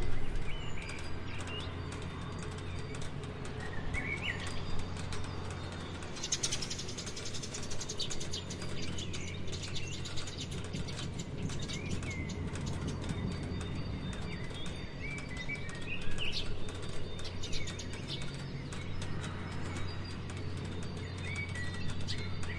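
Steady rain falling, with small birds giving short chirps now and then and a low steady hum underneath.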